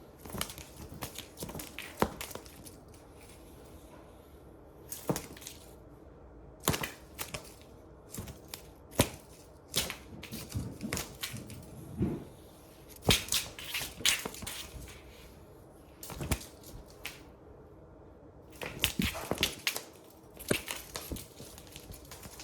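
A cat playing with a ribbon toy: irregular rustling, crinkling and light knocks that come in clusters, with short quiet gaps between them.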